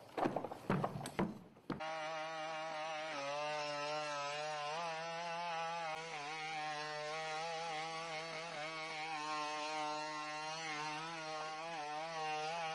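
A few irregular knocks of a humanoid robot's feet stepping on loose rocks, then, about two seconds in, a steady buzzing drone whose pitch wavers up and down: the engine-driven hydraulic power unit of a BigDog quadruped robot as it walks.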